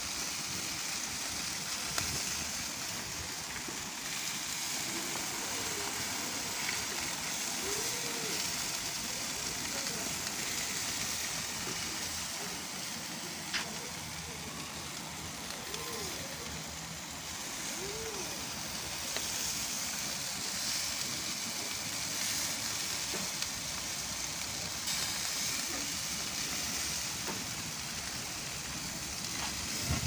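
Meat sizzling on a charcoal grill: a steady hiss with light crackle, and one sharp pop near the middle.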